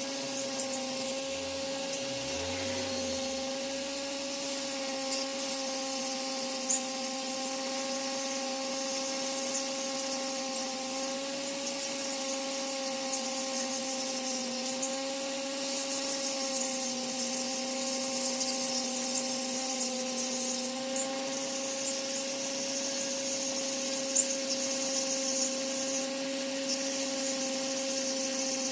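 Small electric power tool working wood: its motor hums steadily, the pitch sagging slightly now and then as it takes load. Sharp little ticks are scattered throughout.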